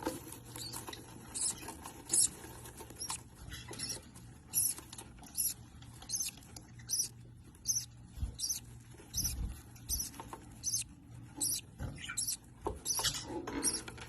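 Small birds chirping: short high-pitched chirps repeated about every half second, over a faint steady low hum.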